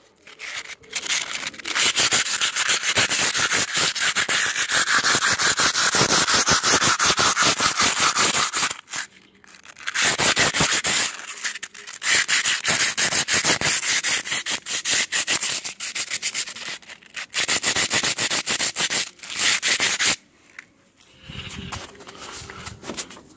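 A small piece of sandpaper rubbed over dried grout in the joints of rough stone facing, smoothing off excess mortar. It goes in quick back-and-forth strokes with a few short pauses and turns quieter near the end.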